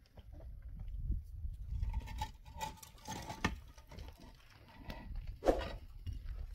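Hollow concrete blocks knocking and scraping as they are set onto a stack, with a sharper knock about five and a half seconds in.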